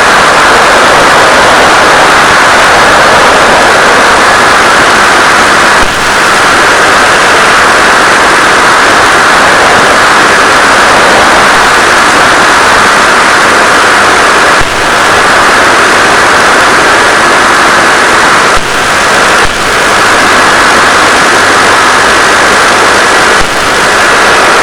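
Loud, steady hiss of static on the FPV video link's audio channel, dipping briefly about five times.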